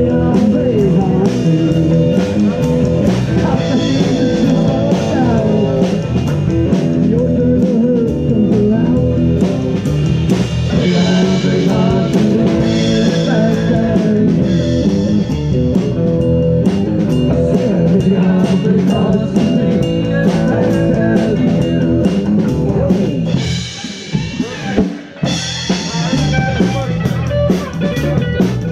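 Live band of electric guitar, electric bass and drum kit playing a passage without vocals, with a steady drum beat. The band thins out for a brief break about 24 seconds in, then comes back in.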